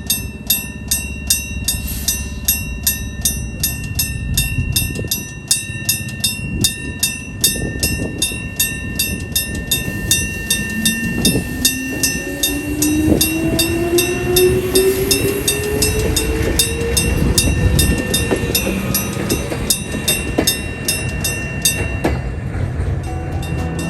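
Sankosha electric-bell level crossing alarm from 1966 ringing, its clapper striking the bell about twice a second with a steady ringing tone between strikes; only one of the crossing's two bells still works. A Jōmō Electric Railway 700-series train runs through, its motors whining and rising steadily in pitch around the middle as it gathers speed.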